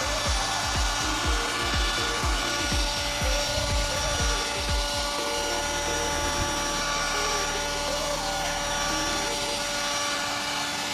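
Back-and-forth strokes of a hand tool, likely a saw, working PVC pipe at several strokes a second, stopping about five seconds in and giving way to a steady low hum.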